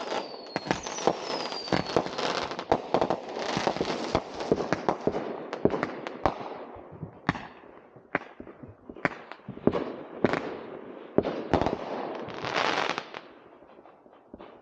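Consumer fireworks going off in a rapid string of bangs and crackles, with whistles falling in pitch over the first two seconds. The crackling thins after about seven seconds to separate bangs, with a loud hissing crackle shortly before the end.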